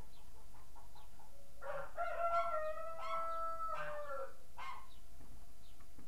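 A rooster crowing once: a long call of about two and a half seconds, stuttering at the start, holding its pitch and then dropping at the end. A short call follows and faint small-bird chirps sound around it.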